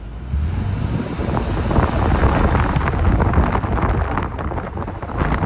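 A Lexus four-wheel-drive driving under acceleration, heard from outside: a deep engine and road rumble that swells about a third of a second in and stays loud, with wind buffeting the microphone. It is a road test after a transfer case chain noise repair, and the mechanic judges the car fixed.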